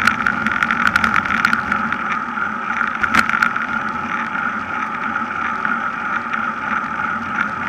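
Wind and road noise on the microphone of a camera riding on a road racing bicycle: a steady rush with scattered sharp clicks and knocks.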